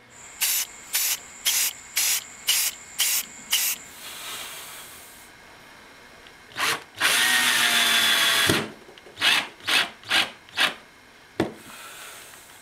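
Cordless drill driving screws into a wooden carpet transition strip: short trigger bursts, then a run of about a second and a half in the middle where the motor whine rises in pitch, then more short bursts.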